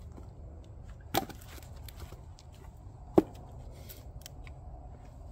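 Two wooden knocks, the second louder and sharper. Split red oak firewood is being handled and a round is set up on the chopping block.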